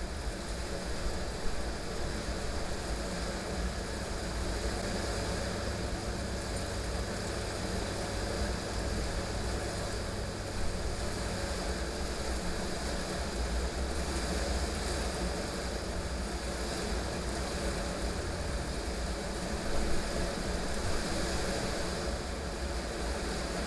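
Heavy rain falling steadily, with a deep low rumble underneath and a few slight swells in loudness.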